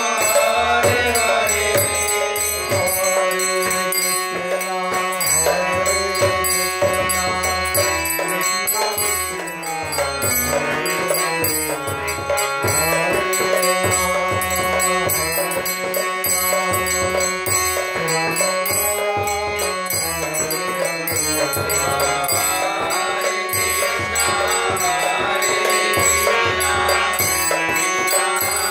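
A man singing a devotional mantra chant to his own harmonium, which holds steady sustained chords under the bending vocal line. Light percussion jingles and keeps a steady beat.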